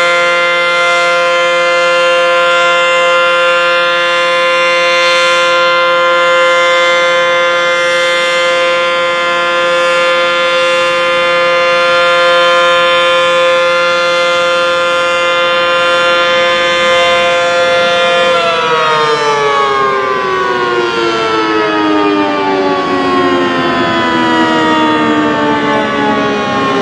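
ACE Banshee 155 outdoor warning siren sounding a loud, steady chord of several tones. About two-thirds of the way through it begins to wind down, and its pitch falls slowly and smoothly.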